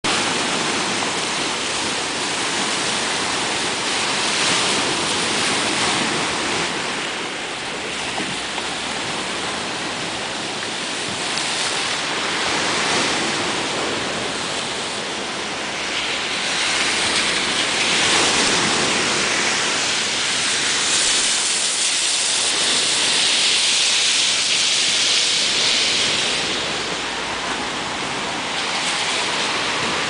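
Choppy sea waves breaking and washing against the shore: a continuous rush of surf that swells and eases every few seconds.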